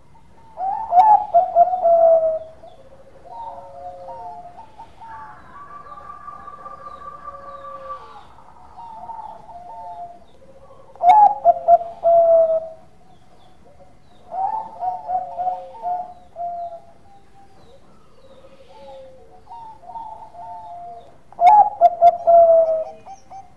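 Caged zebra dove (Bangkok-type perkutut) cooing its song in three loud bouts of quick stuttering coos, about ten seconds apart. Softer coos fill the gaps between them.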